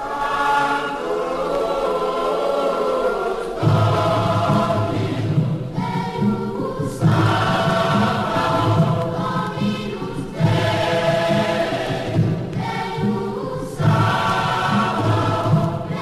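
Background music: a choir singing long held chords, changing every couple of seconds, with a deeper bass part joining about three and a half seconds in.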